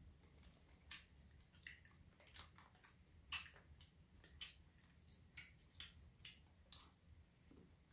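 Faint eating sounds: chopsticks clicking and tapping against takeaway food containers, about half a dozen light clicks scattered through, the loudest a little over three seconds in.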